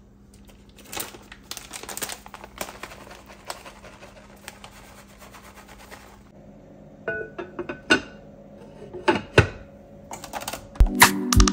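Crinkling of a plastic bag of shredded cheese being shaken out over a pot of spaghetti. Then a few clinks and knocks as the metal-handled lid is set on the pot, one of them ringing briefly. Loud music with a beat starts near the end.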